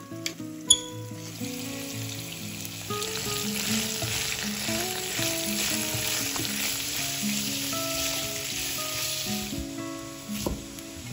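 Food sizzling in hot oil in a pan, building up a second or two in and fading out near the end, over light background music.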